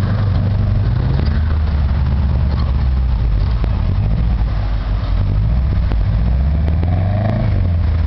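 Engine of a small off-road 4x4 working under load as it climbs a steep grassy bank, its revs rising and falling.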